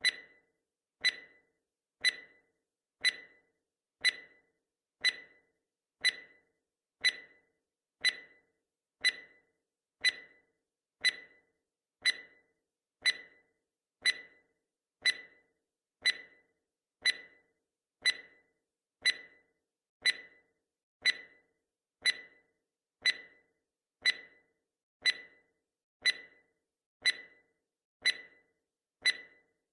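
Countdown timer's ticking sound effect: one short, sharp tick every second, each dying away quickly, keeping a steady pace.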